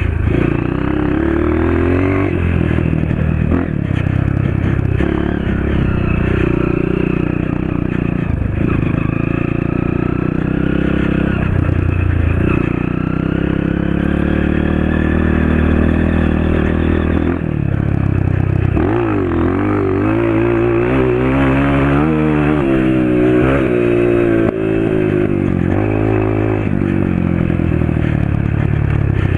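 Honda CRF230's single-cylinder four-stroke engine with an FMF PowerCore 2 muffler, ridden hard: the exhaust note climbs and drops again and again as the bike accelerates and shifts, with quick rising-and-falling revs in the second half.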